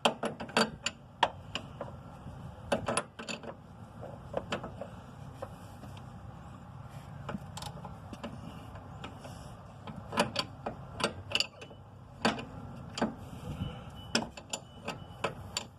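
Ratchet wrench with an extension working a sway bar end-link nut: irregular sharp clicks and metallic knocks of the tool against the nut and suspension parts.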